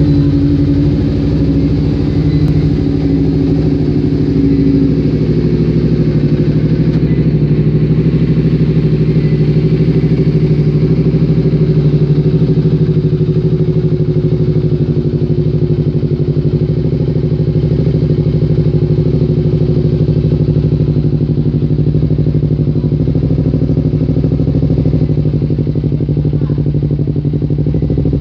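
Honda CBR250RR motorcycle engine idling steadily through an aftermarket CNC exhaust muffler.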